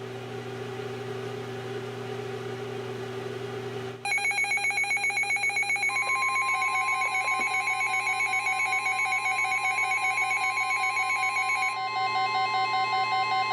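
Several NOAA weather radios sounding their warning alarms together. After a few seconds of hum from the open broadcast channel, a fast, pulsing electronic beeping starts suddenly. About two seconds later the station's steady 1050 Hz warning alert tone joins it, announcing a new flood warning. Some of the beeping drops out near the end.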